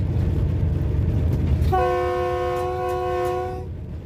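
A GE U20C diesel-electric locomotive's air horn sounds one blast of several notes together, lasting just under two seconds and starting about two seconds in. Under it is the steady low rumble of the locomotive running along the track.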